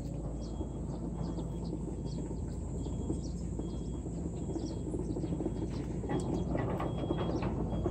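Steady low rumble of heavy machinery's diesel engine working, with a faint short high chirp repeating about every two-thirds of a second.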